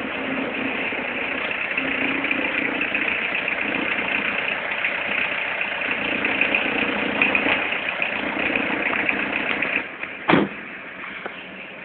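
Citroën Xantia 1.9 turbodiesel engine idling cold, with a strange noise from the auxiliary belt area, around the crankshaft damper pulley. About ten seconds in the running sound falls away and a single sharp knock follows.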